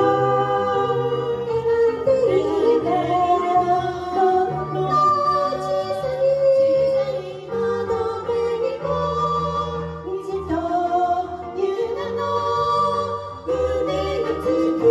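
Two women singing a duet into handheld microphones over a karaoke backing track.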